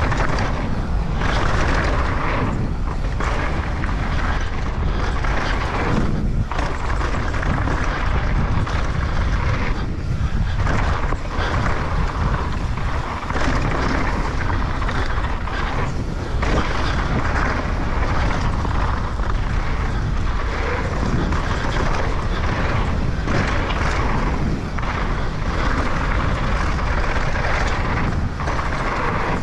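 Steady rush of wind and trail noise on a mountain biker's action camera while riding fast downhill, with brief dips here and there.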